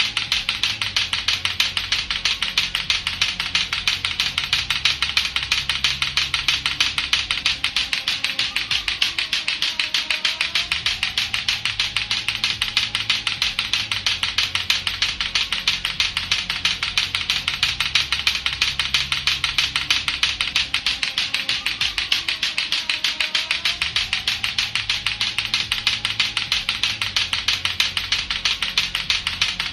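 Lato-lato clackers: two hard plastic balls on a string knocking together in a fast, even rhythm of several sharp clacks a second. Under the clacks runs a fainter low background sound with slow pitch glides that comes back about every 13 seconds.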